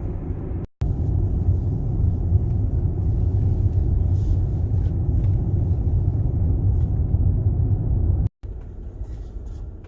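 Steady low road and tyre rumble inside a moving electric car, with no engine note. It cuts out abruptly twice, about a second in and near the end, and is a little quieter after the second break.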